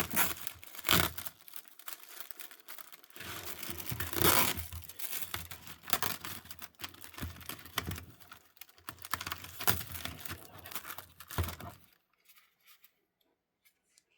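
Plastic film being peeled back from a microwave macaroni and cheese meal tray, crackling and tearing in a run of uneven pulls that stops about two seconds before the end.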